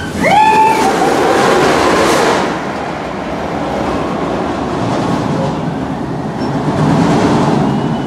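Schwarzkopf shuttle loop roller coaster train launching out of the station. A short rising whine about half a second in, then a steady rumble of the train running on the track that eases off and swells again near the end.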